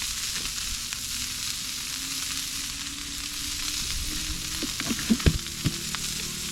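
Pork slices sizzling steadily in a hot grill pan, with a few sharp knocks about five seconds in.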